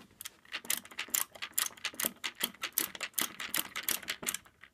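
Ratchet screwdriver clicking steadily, about four to five clicks a second, as its pawl ratchets back between turns while it tightens the screw terminals in a solar panel junction box.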